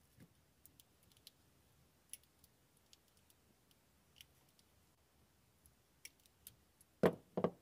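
Faint scattered clicks and plastic rattles from handling side cutters, corrugated plastic wire loom and cables, with two louder clacks close together near the end.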